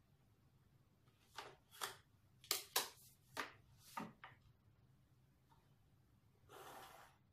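Pencil and clear plastic set square handled on drawing paper: a quick run of short scratches and taps, then a longer pencil stroke along the set square's edge near the end.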